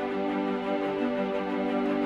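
Background music of soft, sustained chords, changing chord about a second in.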